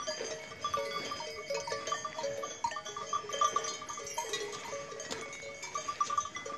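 Bells on grazing livestock clanking irregularly: short ringing strokes at a few fixed pitches, coming in uneven clusters.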